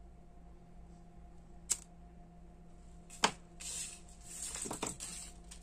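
Two sharp clicks, the second louder, then a couple of seconds of rustling as a grosgrain ribbon bow is handled and shaped by hand.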